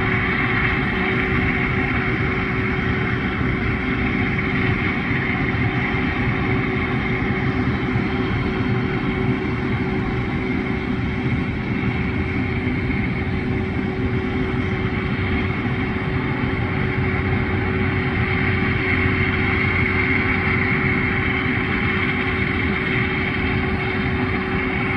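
Aircraft engines running at idle: a steady drone with a constant hum through it.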